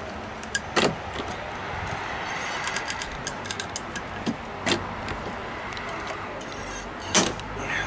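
Three sharp clicks or knocks a few seconds apart, with a run of lighter ticks between them, over steady background noise: hand work on a steel body panel being patched and riveted.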